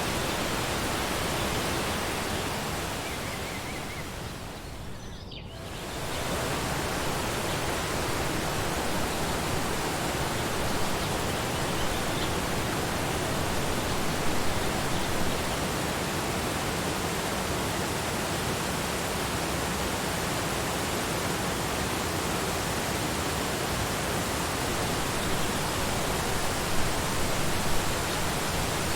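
Forest waterfall rushing as a dense, even noise. It briefly fades down about five seconds in, then comes back to full strength.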